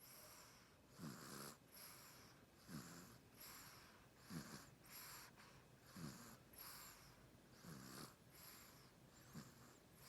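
Soft, regular snoring: about six snoring in-breaths, one every second and a half to two seconds, each rising slightly in pitch, with breathy out-breaths between them.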